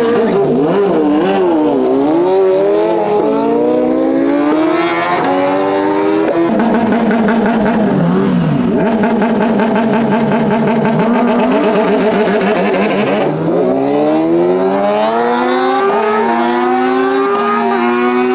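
High-revving drag-race engines accelerating hard through the gears. The pitch wavers up and down at first, then climbs and drops back at each upshift. The engine note falls away about two-thirds of the way in, then climbs through the gears again.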